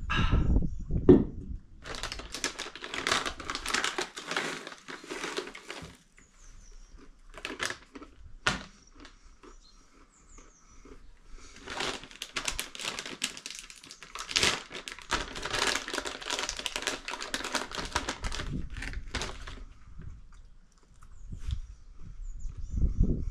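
Plastic snack packet crinkling as it is handled and rummaged in, in two long stretches with a few sharp clicks between.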